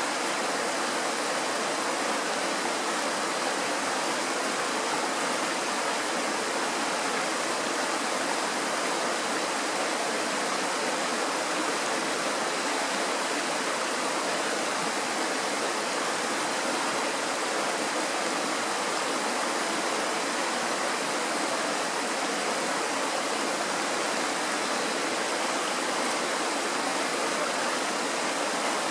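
Mountain stream rushing over rocks in small white-water cascades: a steady, unbroken rush of water.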